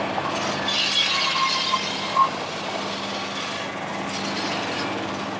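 Steady hum of a running engine under outdoor background noise, with a brief sharp sound a little over two seconds in.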